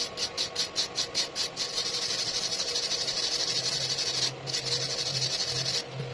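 Stick-welding arc with an E6013 rod on a 2F fillet joint: a quick run of crackles for the first second and a half, then a steady crackling hiss that breaks off briefly about four seconds in and stops near the end.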